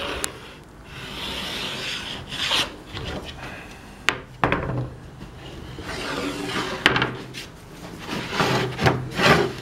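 Pencil scratching along a pallet-wood board in long strokes, marking a straight line, with a few sharp knocks of tools set against the wood.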